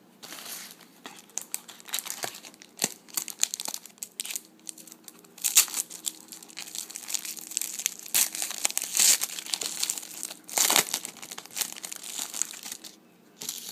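Foil trading-card pack wrapper being crinkled and torn open by hand: a run of crackly rustling, loudest in stretches around the middle and about eleven seconds in.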